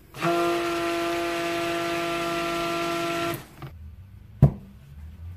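Handheld stick blender running steadily for about three seconds in a pitcher of cold process soap batter, mixing in the sage green colourant; a steady whine that then cuts off. About a second later, a single sharp knock.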